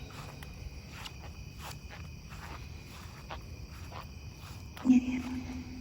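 Crickets chirping steadily in the night background, with faint scattered ticks. A brief low hum about five seconds in is the loudest thing.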